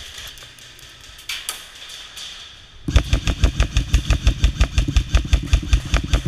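Airsoft electric gun firing a long full-auto burst of rapid, evenly spaced shots, starting about three seconds in. Before that there are only fainter clicks and noise.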